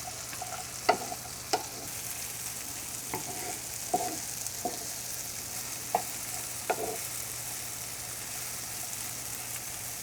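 Barberries and raisins sizzling in melted butter in a frying pan, with a steady light hiss. A utensil knocks and scrapes against the pan several times as they are stirred, the knocks stopping about seven seconds in.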